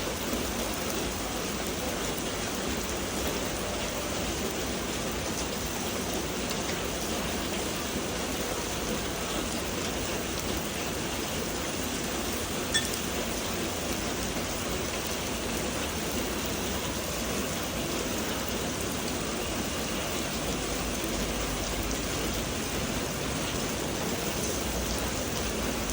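Meat sizzling steadily on a Korean barbecue grill, with one short click about halfway through.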